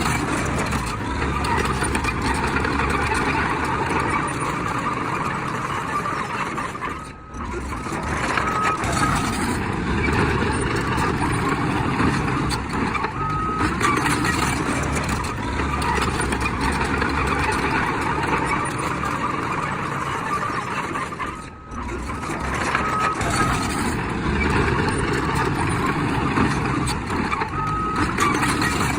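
Heavy earthmoving machinery running steadily, with a reversing alarm giving short beeps every few seconds. The sound dips briefly twice.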